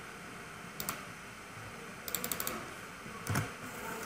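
Computer keyboard and mouse clicks. There is a single click about a second in, then a quick run of about five key taps just after two seconds, and a duller knock near the end.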